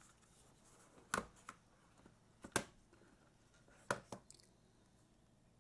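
Jelly Comb foldable keyboard being unfolded and set down on a desk: a handful of short, sharp clicks and knocks from its hinged panels, the loudest about two and a half seconds in.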